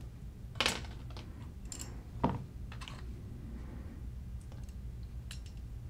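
Scattered light clicks and taps of small side charging handle parts being handled and set down on a work mat, with a few separate clicks and the strongest two about half a second and two seconds in.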